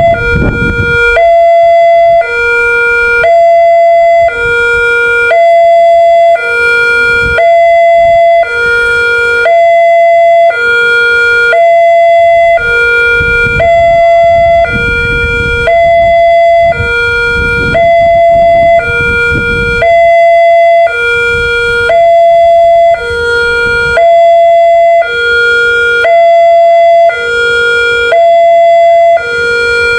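Newly installed railroad level-crossing warning siren sounding continuously. It alternates between a high and a low tone, about one second each. A low rumble comes and goes underneath.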